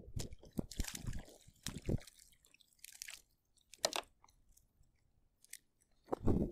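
Irregular clicks, crackles and knocks of fishing gear being handled on a kayak while a porgy is reeled in and swung aboard. They come thickly in the first two seconds, then only now and then, with a louder knock near the end.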